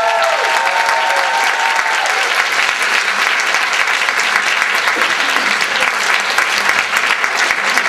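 Audience applauding steadily, with a few voices calling out over the clapping in the first couple of seconds.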